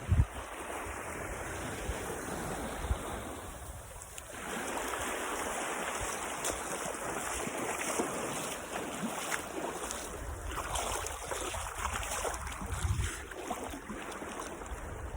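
Sea surf washing onto a beach, a steady rushing that swells louder about four seconds in, with wind buffeting the microphone in low thumps.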